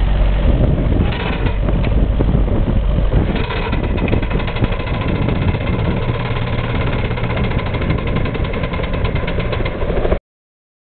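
Miniature steam ploughing engine working hard under load, a steady mechanical running sound that takes on a fast, even beat about three seconds in. The sound cuts off suddenly near the end.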